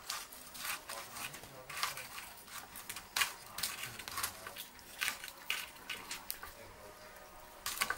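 Wood fire burning in a clay cookstove, giving faint, irregular crackles and snaps.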